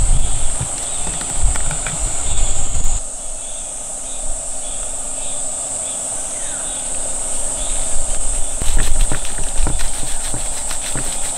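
Kitchen knife cutting through freshwater eel fillet onto a wooden cutting board, a run of quick taps in the last few seconds, over a steady high drone of insects. A low rumble of wind on the microphone fills the first few seconds, then stops suddenly.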